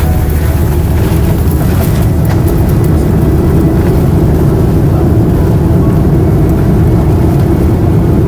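Loud, steady low rumble inside an airliner cabin during landing, with rattling ticks in the first couple of seconds that then give way to an even roar.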